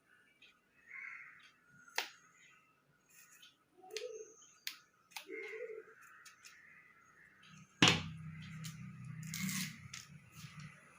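Scattered sharp clicks, taps and short rustles of hands working with small parts, such as tape and thermocol pieces. About eight seconds in comes a thump, followed by a steady low hum.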